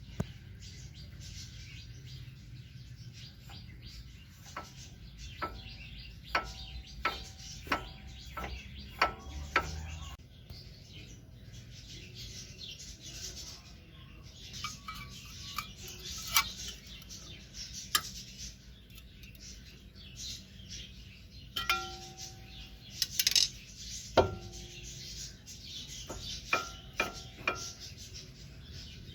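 Metal clinking and tapping, with a run of evenly spaced clicks a little under two a second for several seconds, then scattered louder clinks, some with a short metallic ring.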